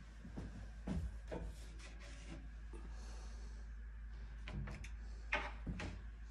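Light clicks, knocks and rubbing as a kitchen cabinet door is opened and its contents handled, with the sharpest pair of knocks near the end.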